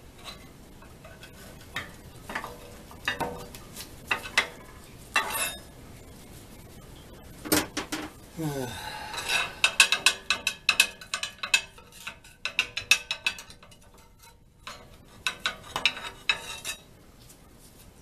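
Metal clinks and clicks of a hand wrench working the steel bolts of a bolted plate on a wood boiler: scattered taps, a sharp clank about seven and a half seconds in, then runs of quick clicking.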